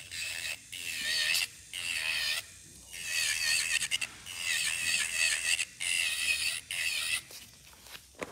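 Electric nail drill (e-file) with a bit filing the cuticle area of an acrylic nail. Its high whine comes and goes in short passes of about a second each and stops about seven seconds in.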